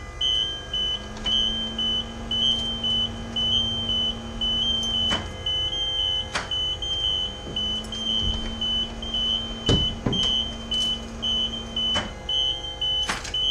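School bus warning buzzer beeping steadily, about twice a second, with the key on and the engine not starting, and a low hum that switches on and off twice. A few sharp clicks sound over it.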